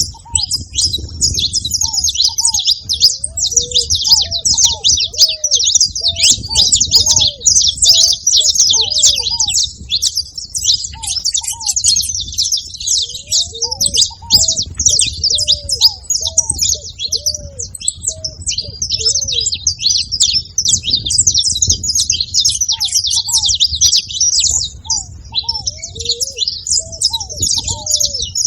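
A group of saffron finches chirping and singing together in a dense, unbroken chatter of fast high notes. Under it runs a repeated series of short, lower arched notes.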